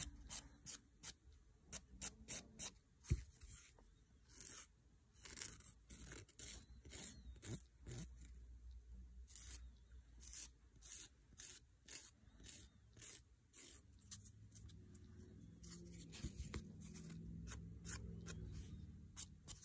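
Hand nail file rasping lightly over the hard building gel at a fingernail's free edge, in short, even strokes about two a second. The sound is faint because little pressure is applied.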